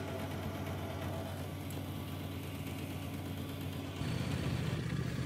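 Steady hum of a petrol pump dispenser's motor delivering fuel into a motorcycle tank. The hum shifts slightly about four seconds in.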